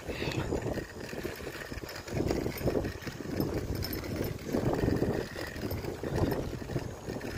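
Wind rushing over the microphone and rumble from a bicycle rolling along a paved path, rising and falling in uneven gusts.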